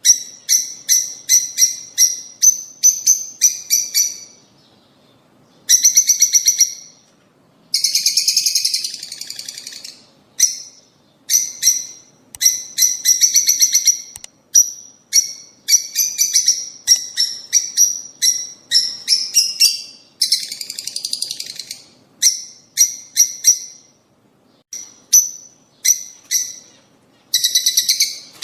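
Lovebirds chirping: runs of sharp, high-pitched chirps broken by short pauses, with two longer, harsher chattering stretches.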